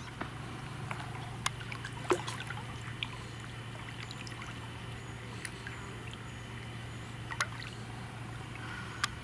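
Lake water trickling and lapping around hands and a carp being held and released in the shallows, with a few small sharp splashes, the loudest about two seconds in, over a steady low hum.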